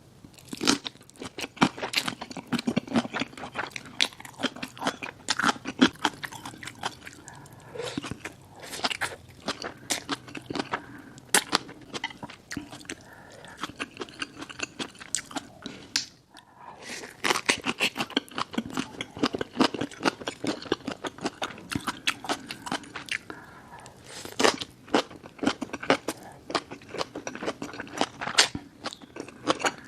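Close-miked eating: rapid chewing and crunchy bites of food, with a brief break about halfway through.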